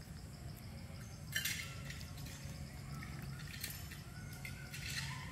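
Three short, sharp cracks, about a second and a half in, near four seconds and just before the end: a young long-tailed macaque biting into peanuts, over a steady low hum.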